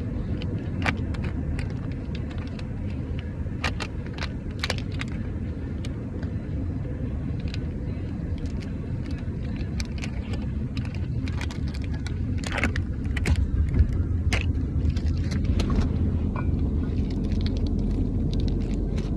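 A steady low rumble with scattered sharp clicks and short rustles over it, most of them in two clusters, one early and one around the middle.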